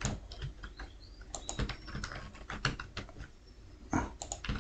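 Typing on a computer keyboard: irregular key clicks in quick runs, with a louder cluster about four seconds in.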